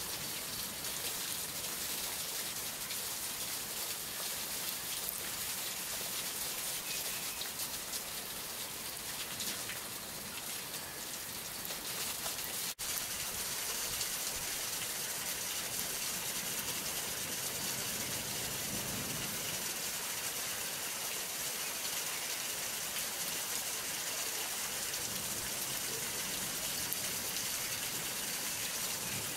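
Steady downpour of a hail storm falling on leaves and hail-covered ground, an even pattering hiss. About 13 s in the sound drops out for an instant at an edit, then carries on the same.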